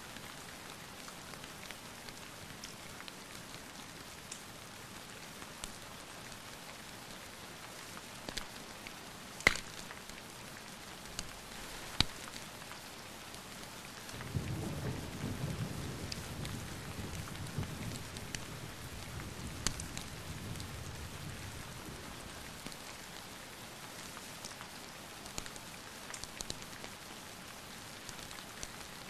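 Steady rain with a low roll of thunder that rumbles for several seconds from about the middle of the stretch and fades away. A few sharp pops cut through the rain, the loudest two a few seconds before the thunder.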